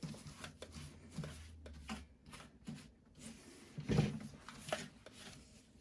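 Faint handling noises: light clicks and rubbing, with a louder knock about four seconds in, as plastic parts are handled and moved.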